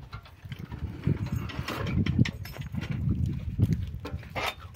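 Irregular knocks, clatter and rustling of a camel being hitched between the iron shafts of a camel cart, over a steady low rumble.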